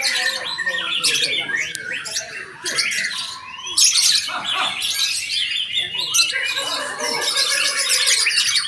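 Several white-rumped shamas (murai batu) singing at once, a dense, unbroken stream of overlapping whistled phrases with no pauses.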